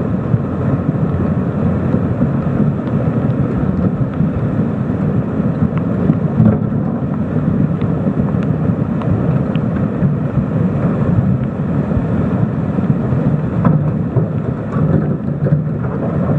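Muddy floodwater rushing past in a swollen river: a loud, steady, deep rush with no breaks.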